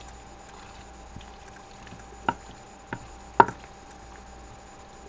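A spoon stirring cooked egg noodles in a creamy sauce in a glass baking dish, with three short sharp knocks of the spoon against the dish, the loudest about three and a half seconds in.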